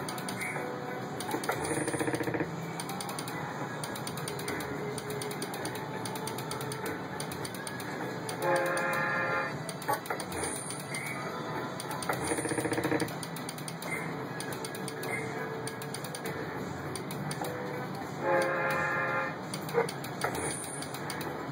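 Merkur Rail Road slot machine's electronic game sounds during its free-spin feature: rapid ticking as the reels spin and stop, broken by four short tonal jingles, the loudest about eight and eighteen seconds in.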